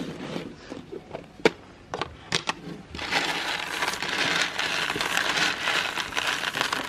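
Meat grinder crushing an item fed into it: a few sharp cracks in the first couple of seconds, then about four seconds of continuous crunching that stops just before the end.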